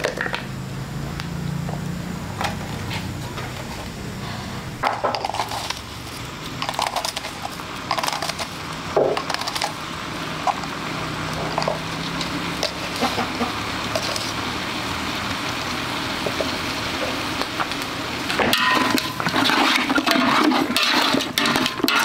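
Cooking over an open wood fire: scattered clicks, crackles and knocks of burning sticks and handled wood and utensils around a large pot, with a faint low hum in the first half. A louder burst of clatter comes near the end.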